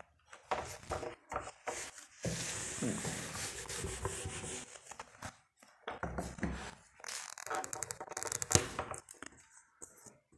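Light handling noises: rubbing and rustling with scattered knocks and taps, the longest rustle running from about two to five seconds in.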